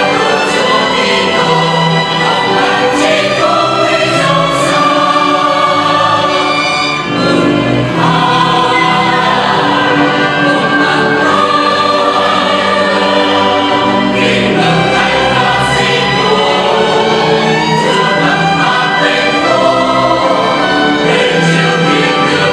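Mixed church choir singing sacred music, accompanied by a string ensemble of violins, cello and double bass, in sustained phrases with a short break about seven seconds in.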